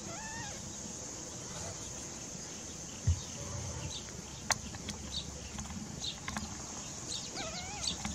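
Newborn kitten mewing in thin, wavering squeaks: a short call near the start and a run of calls near the end. A dull thump comes about three seconds in, and a sharp click a little after.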